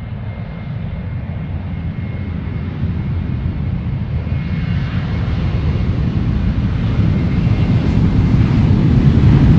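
Airplane engines rumbling, growing steadily louder throughout, with a faint high whine fading out partway through.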